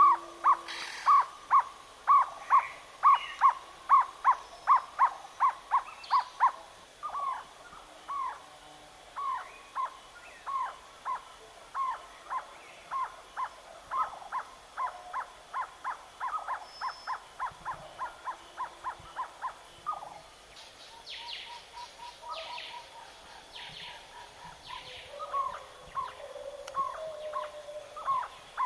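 Jungle owlet calling: a long series of evenly repeated short notes, about three a second and loud at first, then softer and a little slower. Around twenty seconds in the series gives way to shorter, higher calls, and the repeated notes pick up again near the end.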